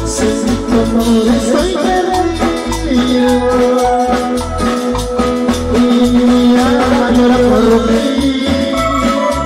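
Loud Latin dance music with a steady pulsing bass beat, regular percussion and long held melody notes.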